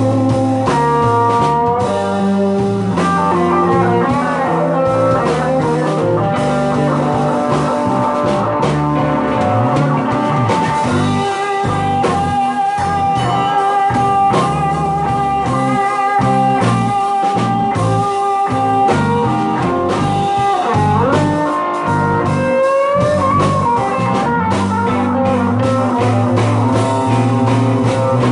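Live blues band playing an instrumental break: a lead guitar plays held, wavering and bending notes over the band's bass and drums, with no vocals.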